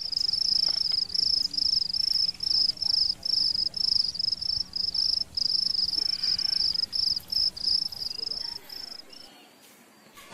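Insect chirping: a high trill at one steady pitch, broken into short pulses about three times a second. It fades out near the end.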